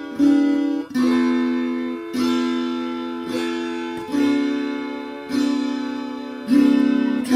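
Instrumental music: slow plucked guitar notes, each struck about once a second and left to ring and fade, with no singing.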